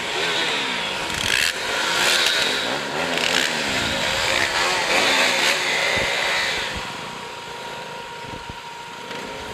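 Single-cylinder KTM RC motorcycle engine running at low speed, its pitch rising and falling with the throttle and gear changes, quietening over the last couple of seconds.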